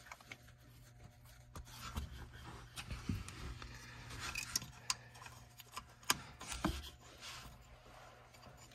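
Faint hand-handling sounds, scattered clicks and scuffs of plastic and metal, as a transfer case shift motor is seated against the case and its wiring connector is handled.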